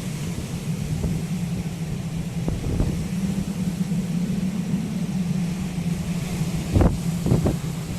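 Typhoon storm wind blowing hard with rain, buffeting the microphone in a steady low rumble. Stronger gusts thump against it a couple of times near the end.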